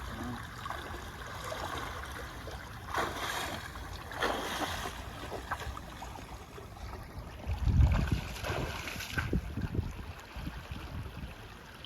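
Flowing creek water rushing steadily, with a few louder surges and a strong gust of wind buffeting the microphone about eight seconds in.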